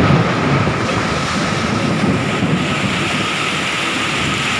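Strong wind rushing steadily and buffeting the microphone.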